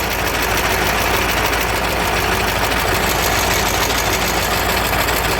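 KamAZ V8 diesel engine idling steadily, with diesel fuel gushing from under a loose injector. The leak is the sign that one cylinder is not firing properly, leaving the engine running on seven cylinders.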